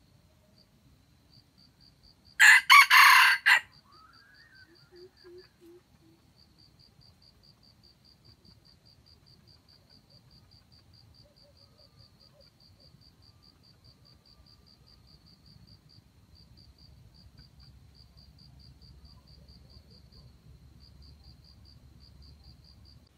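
Red junglefowl rooster crowing once, a short hoarse crow about two and a half seconds in, followed by a few soft low clucks. A faint, high insect chirp pulses about five times a second throughout.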